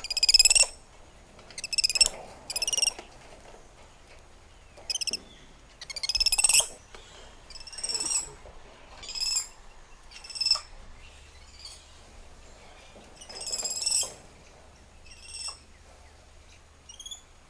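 Spider monkeys calling: about ten high-pitched squealing calls, each under a second long and spaced irregularly a second or two apart, with a short rising chirp near the end.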